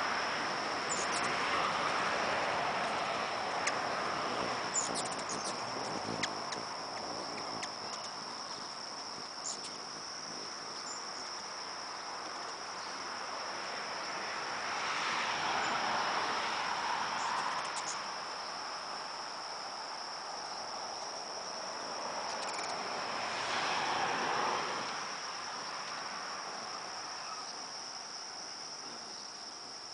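Insects trilling, one steady high-pitched tone that never lets up. Beneath it a soft rushing noise swells and fades three times: near the start, in the middle and about three quarters of the way through.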